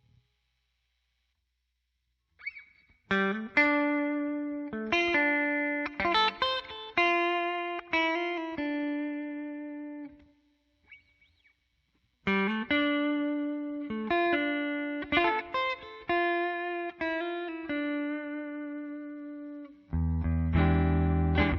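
Telecaster-style electric guitar played through an amplifier: single picked notes and short phrases, each note ringing out. It starts a couple of seconds in, pauses for about two seconds midway, and turns to fuller, lower chords near the end.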